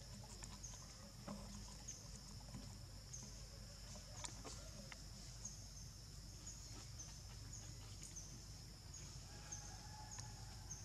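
Faint insect chorus: a steady high buzz with a short chirp repeating roughly every two-thirds of a second, over a low rumble.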